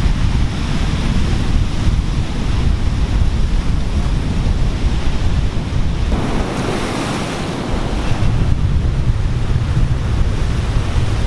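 Heavy ocean surf breaking and washing over rocks, a steady roar of water, with wind buffeting the microphone as a deep rumble. About six seconds in the rumble eases for a couple of seconds while the hiss of foaming water rises, then the rumble comes back.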